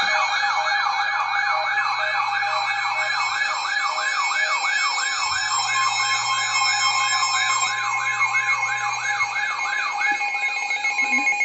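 Emergency alert tone: a siren-like warble sweeping up and down about three times a second over a steady alarm tone, heralding a broadcast severe thunderstorm warning. It cuts off near the end.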